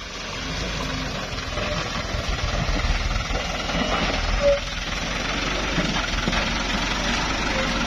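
Toyota Dyna dump truck's diesel engine running steadily under load as the truck climbs a slippery mud track, with a brief short tone about four and a half seconds in.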